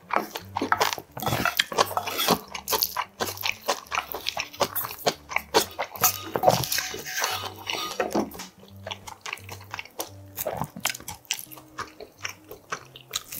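Close-miked chewing and wet mouth sounds of eating saucy budae bokkeum with rice, a dense run of irregular clicks and smacks, with a wooden spoon scraping and knocking in a brass bowl. A low bass line runs faintly underneath.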